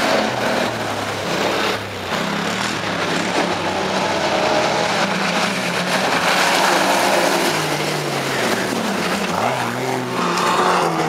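Off-road 4x4 and quad bike engines revving as they drive a dirt track, the pitch rising and falling with the throttle; one engine revs up sharply about nine seconds in.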